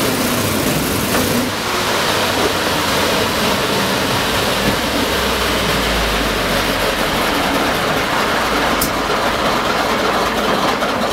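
WWII-era Marine LVT amphibious tractor running as it drives, heard from on board: a loud, steady engine and drive noise, with a brief low rumble midway and a single sharp click near the end.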